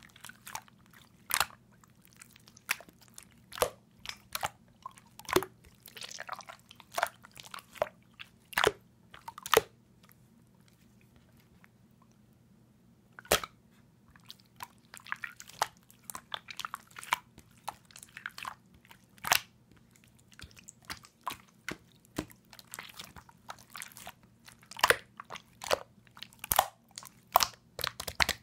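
Clear slime being squeezed and pressed by hand, making irregular sharp clicks and pops, with a pause of a few seconds about halfway. A faint steady low hum runs underneath.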